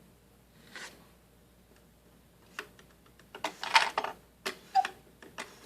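Clicks and handling noises from a mechanical cuckoo clock being adjusted by hand, its hands being moved toward the hour. There are scattered sharp clicks and a short noisy burst just past the middle.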